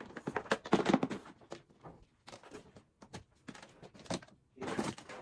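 Hard plastic panels of a collapsible storage bin clicking, knocking and snapping as its folded sides are swung up and locked into place: a quick run of clicks in the first second or so, then scattered single clicks.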